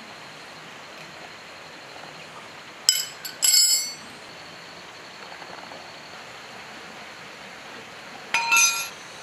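Steel wrenches clinking with a bright ringing tone: a quick cluster of clinks about three seconds in, and another near the end.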